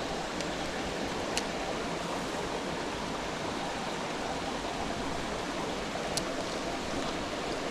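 Mountain stream rushing steadily, with two brief high ticks, one about a second and a half in and one near the end.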